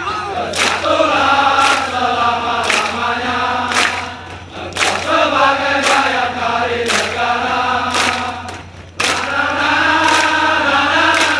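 A large group of soldiers singing a military yel-yel chant song together in unison, with a sharp beat about once a second. The singing dips briefly twice and picks up again.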